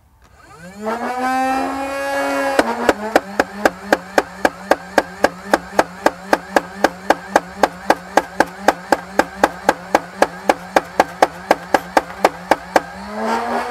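Nerf Rival Khaos flywheel blaster spinning up with a rising motor whine, then firing full auto: a steady train of about four shots a second for some ten seconds as its 40 foam balls go out. The motor pitch drops a little under load, a slight chugging, and near the end the whine rises again as the magazine runs empty.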